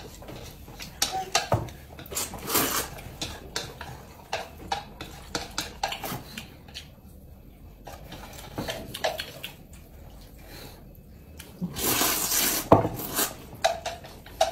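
Noodles being slurped and chopsticks clicking and scraping on a ceramic plate during a meal, with a few longer, louder slurps among many small clicks.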